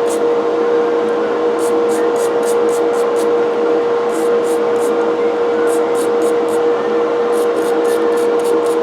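Wire brush scrubbing metal parts in quick runs of rasping strokes, several a second, over a loud, steady motor hum.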